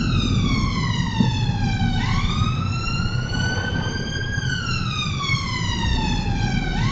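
Emergency vehicle siren wailing in slow sweeps: the pitch falls, jumps back up about two seconds in, climbs, falls again and jumps up once more near the end. A steady low rumble of road or engine noise runs underneath.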